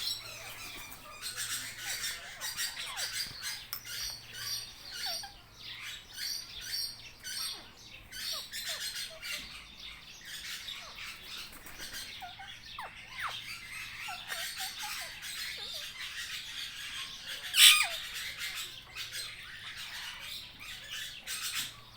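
Many parrots chattering and squawking, short shrill calls overlapping without a break, with one much louder screech about three-quarters of the way through.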